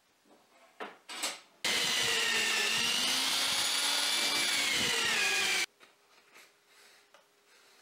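Electric drill mounted in a drill-press stand runs for about four seconds, boring a hole through a wooden disc: a steady whine whose pitch drifts a little, starting and stopping abruptly. A couple of short wooden knocks come about a second in, just before it.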